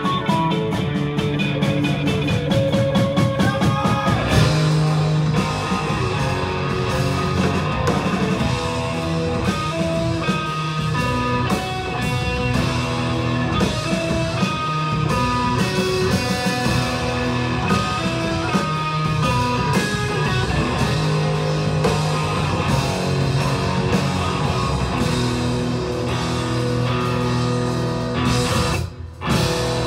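Live rock music played by a guitar-led band, with a brief drop in level near the end.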